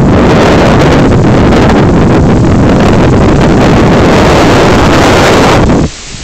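Storm wind buffeting a phone microphone during a hailstorm, very loud and rushing. Near the end it drops suddenly to a quieter, steady hiss of rain.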